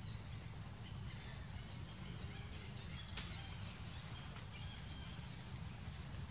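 Outdoor tree-canopy ambience: a steady low rumble with faint, scattered bird chirps, and one sharp click about three seconds in.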